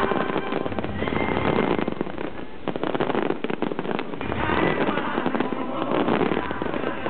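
Aerial fireworks bursting and crackling in a dense, continuous barrage of rapid pops and bangs, thickest about three seconds in.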